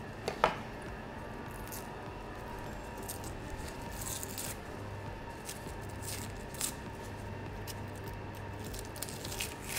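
Quiet kitchen room tone with a steady low hum; about half a second in a knife is set down on a plastic cutting board with a single click, followed by faint scattered clicks and rattles of handling.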